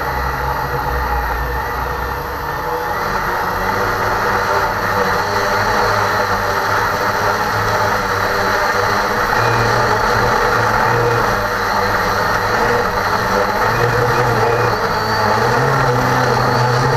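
Cheerson CX-20 quadcopter's motors and propellers whirring steadily in flight, heard up close from its own onboard camera.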